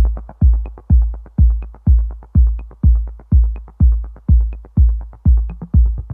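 Electronic dance track played loud through a disco sound system with subwoofers during a sound check: a steady four-on-the-floor kick drum with deep sub-bass about two beats a second, and short off-beat ticks between the kicks.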